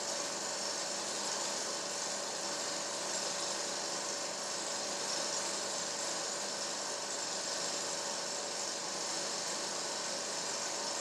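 Film projector running: a steady mechanical whirr with hiss and a faint constant hum.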